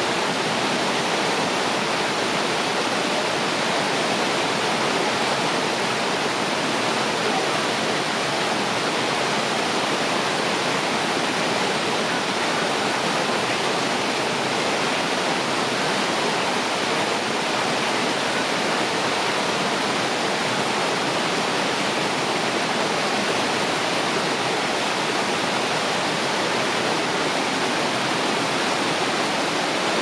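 Waterfall and river water rushing in a steady, even roar of falling water that does not change.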